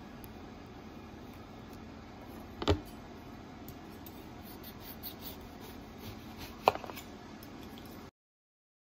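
Knife slicing a lemon through a stainless-steel slicing guide on a wooden cutting board, the blade knocking onto the board twice, about four seconds apart, with a few faint scraping ticks in between.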